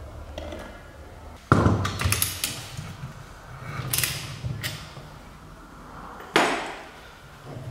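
A three-jaw gear puller tightened with a ratchet wrench against a car's wheel hub, giving two loud, sharp metallic cracks, about 1.5 s in and again near the end, with lighter clicks between. The cracks are the sound of a press-fitted bearing race on the hub being forced off under the puller's load.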